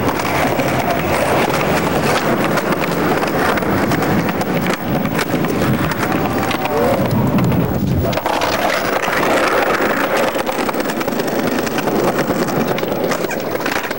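Skateboard wheels rolling on concrete, a steady rumble with sharp clacks of the board, and people's voices in the background. The sound changes abruptly about eight seconds in.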